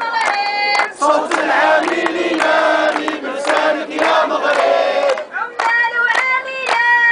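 Protest chant in call and response: a woman calls a slogan through a megaphone, the crowd chants back in unison for about four seconds, and the megaphone calls again near the end.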